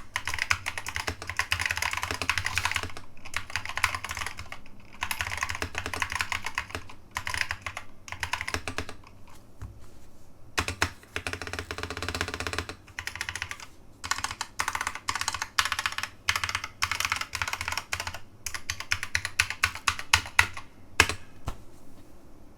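Typing on a mechanical keyboard with new-old-stock Alps SKCC Green switches: quick runs of sharp clicky keystrokes in bursts with short pauses, thinning to a few separate, louder strokes near the end.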